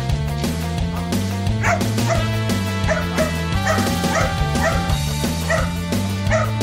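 A dog barking repeatedly, about eight short barks spaced unevenly, starting about a second and a half in, over background music.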